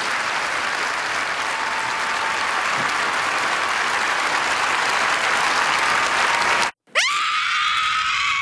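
Audience applauding steadily, then an abrupt cut about seven seconds in to a woman's scream: one high cry that sweeps up, holds, and falls away at the end.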